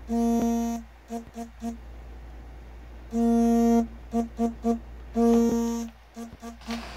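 Mobile phone ringtone for an incoming call: one long buzzy tone followed by three short beeps at the same pitch, repeated three times.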